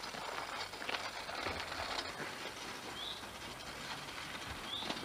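Footsteps and the small wheels of a dog's wheelchair cart crunching and rattling along a gravel driveway.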